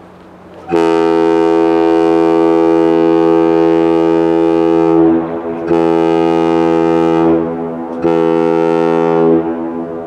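Lake freighter Algoma Olympic's ship horn sounding one long blast followed by two shorter blasts. The horn gives several steady tones together.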